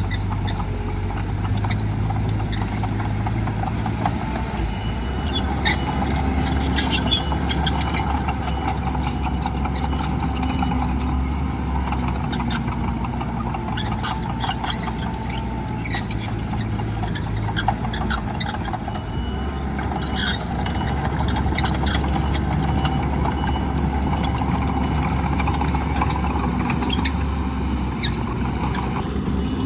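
Heavy diesel earthmoving machinery running steadily, its engine hum shifting in pitch now and then, with scattered metallic clanks and rattles.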